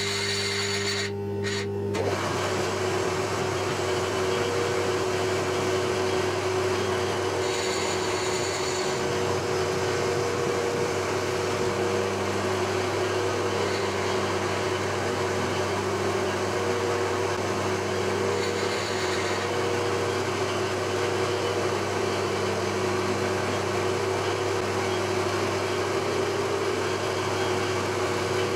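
Milling machine running with a small end mill cutting into a metal block: a steady motor hum under a constant cutting hiss.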